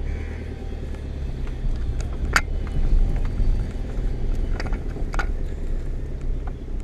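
Car engine and road rumble heard inside the cabin of a moving car, steady and low, with a few short sharp clicks or knocks, the loudest about two and a half seconds in.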